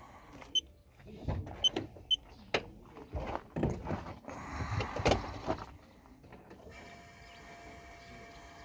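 Knocks, clicks and rustling as a car is readied to start. Then, from about seven seconds in, a faint steady electric whine for about three seconds with the ignition switched on, just before cranking.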